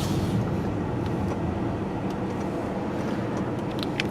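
Steady low engine and road rumble heard from inside a moving car's cabin, with a faint click near the start and another near the end.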